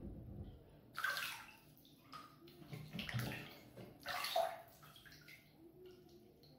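Bathwater splashing and sloshing as hands move through a filled bathtub, in short bursts about a second in, around three seconds, and just after four seconds.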